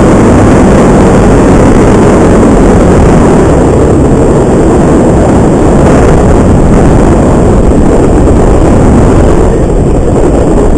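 Paramotor engine and propeller running steadily in flight, mixed with heavy wind rush on the microphone.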